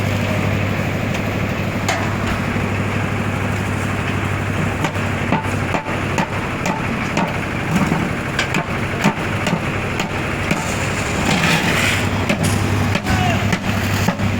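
Construction work: a steady low machine drone with many irregular sharp knocks and taps over it.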